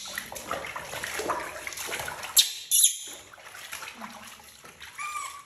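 Water splashing and sloshing in a plastic basin as a baby monkey is washed by hand, with two sharper splashes about two and a half and three seconds in. A short high squeak comes just before the end.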